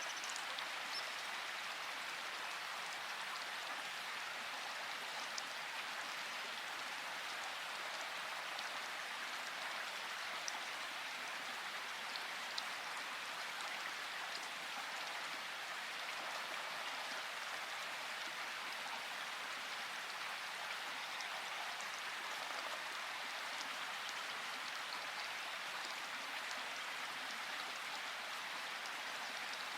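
Steady rain: an even hiss of rainfall with scattered individual drops ticking. No thunder.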